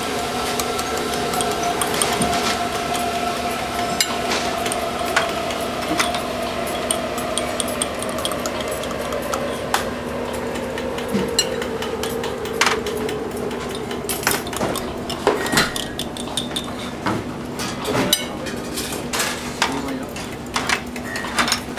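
Kitchen utensils and dishes clinking and knocking against a steady hum of kitchen equipment. The clicks grow more frequent in the second half.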